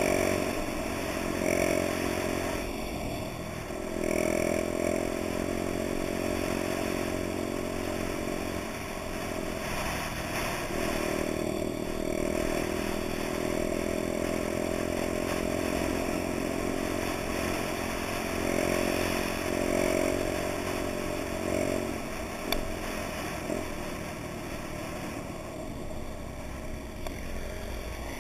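Honda Dax's small four-stroke single-cylinder engine running under way, its pitch rising and falling as the throttle is worked and gears are changed.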